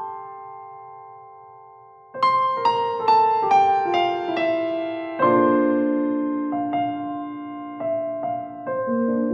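Background piano music: a chord fading out, then a falling run of single notes about two seconds in, followed by slow chords and notes.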